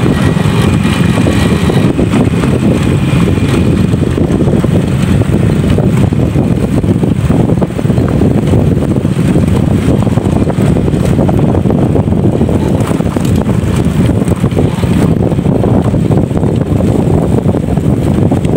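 Motorcycle riding over a rough, rocky road: a steady, loud rumble of engine and road noise.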